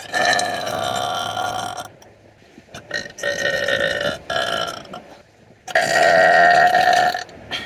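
A person's long, drawn-out, loud burps: three of them, each lasting about one and a half to two seconds, the middle one briefly broken, with a short burp just before the end.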